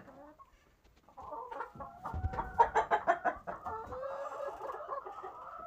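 Laying hens clucking, starting about a second in, with a few sharp knocks mixed in.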